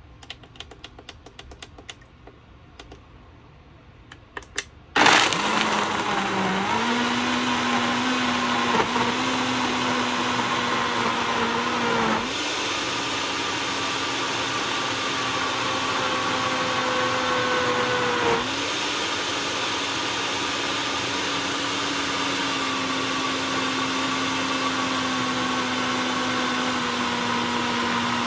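A few light clicks at the controls, then an 1100-watt, 1.5-horsepower countertop blender motor starts about five seconds in and runs steadily, blending fruit, nuts, yogurt and ice into a smooth shake. Its tone shifts twice along the way.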